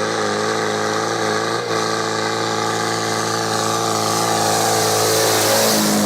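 Ford 5000 tractor's engine working hard under load on an uphill climb, holding a steady pitch with a brief dip about a second and a half in.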